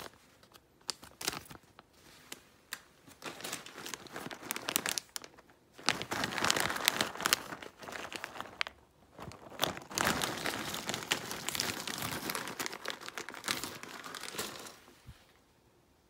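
Typing on a Moonlander keyboard with Gateron Pro White linear switches and low-profile keycaps: a rapid clatter of keystrokes, scattered at first, then dense bursts from about six seconds in with a brief lull, stopping near the end.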